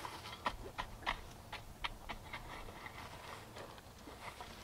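Steel bow rake scraping and knocking through dry, hard clods of broadforked soil: a run of short, irregular scrapes and clicks, busiest in the first couple of seconds and then sparser.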